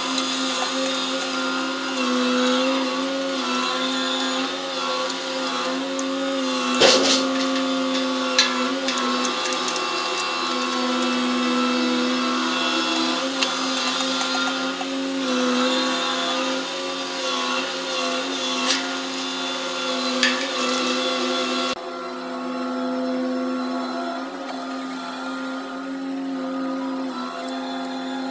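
Gut ship's grab-crane machinery running at double speed: a steady engine and winch hum whose pitch shifts slightly with the load, with a few sharp metallic knocks from the working grab. About three-quarters of the way in, the hum suddenly drops to a quieter level.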